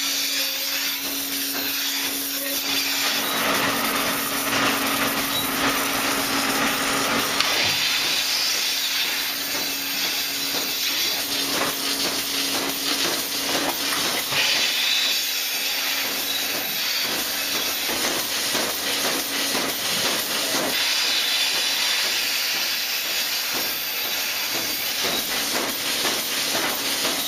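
Milking-parlour machinery: a loud, steady hiss of milking units drawing air under vacuum as they are put on the cows, over a low steady hum that fades about halfway through.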